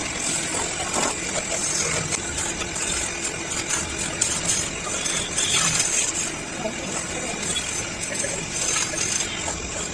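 Large wood lathe running, with a turning tool cutting the spinning wood: a steady hiss and hum with scattered small clicks.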